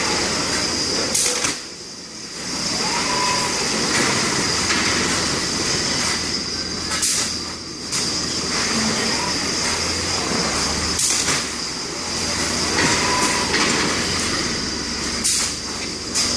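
A Fanuc 420iF palletizing robot cell running: a steady machine hum and hiss, broken by four short, sharp bursts a few seconds apart as the arm picks and places bags. A couple of brief rising-and-falling whines come from the arm's moves.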